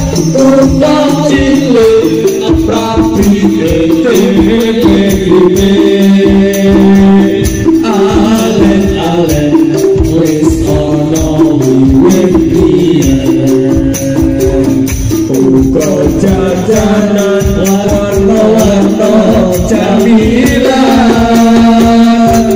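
Background music with a steady percussive beat and a melody.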